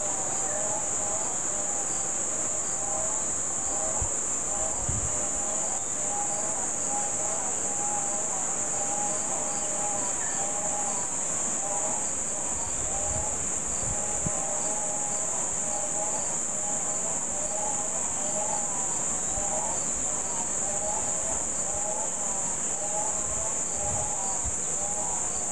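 Insects chirring in a steady, unbroken high-pitched chorus, with a lower two-note call repeating over and over beneath it.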